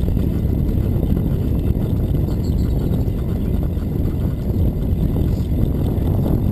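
Steady low rumble of wind and rolling noise on the microphone of a camera riding along on a moving bicycle over asphalt.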